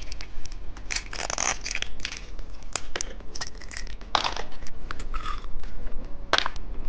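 Candy packaging being handled and opened at close range: crinkling wrapper with many short, sharp clicks and crackles, and a few louder snaps near the middle and end.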